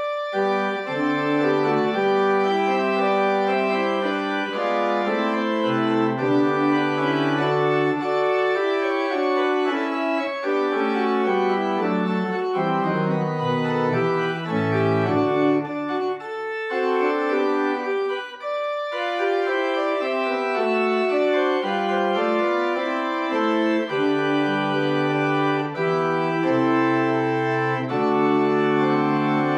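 Organ playing a postlude of slow, held chords at the close of a church service. The bass notes drop out for a couple of seconds just past the middle and then return.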